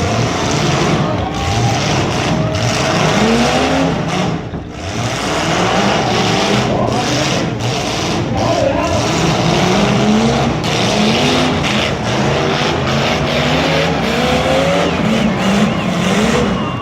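Several demolition derby car engines revving hard over and over, their pitch rising and falling, over a constant dense roar; the sound dips briefly about four and a half seconds in.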